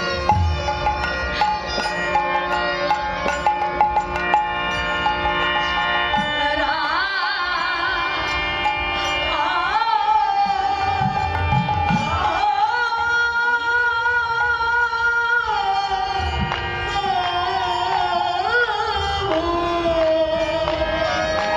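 Bengali devotional kirtan music. Steady held chords at first; from about a third of the way in, a voice sings long, wavering notes that slide between pitches, over hand-drum beats.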